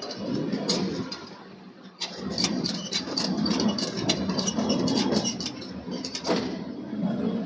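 Forge machinery running with a steady rumble, over which come many irregular sharp metallic clanks and knocks. The rumble drops away briefly about a second in, then picks up again.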